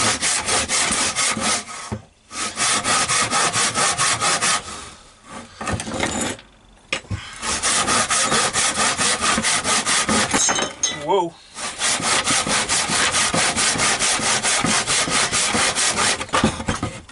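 Handsaw cutting through a thick, weathered wooden plank in rapid, even back-and-forth strokes, broken by a few short pauses.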